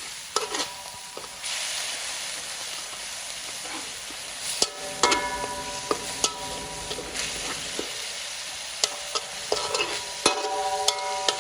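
Garlic and lemongrass frying in hot oil with a steady sizzle, stirred with a utensil that knocks against the pan. The knocks come in clusters of ringing clinks, mostly from about the middle on.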